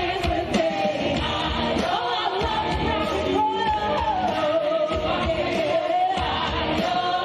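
Stage-show music with a singing voice and a steady beat.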